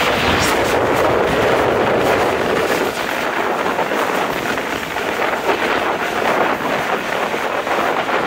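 Steady wind rushing over a microphone held out of a moving passenger coach's window, mixed with the running noise of the train on the track.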